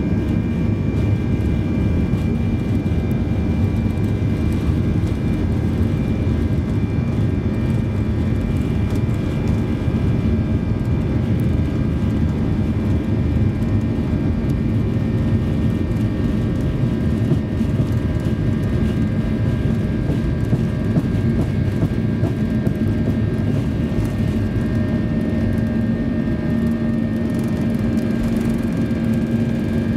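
Cabin noise of a Boeing 737-800 on its takeoff roll: the CFM56-7B turbofans running at takeoff power, a steady heavy noise with a low hum that grows stronger near the end.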